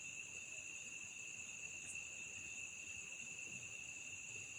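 Crickets trilling steadily, two unbroken high-pitched tones.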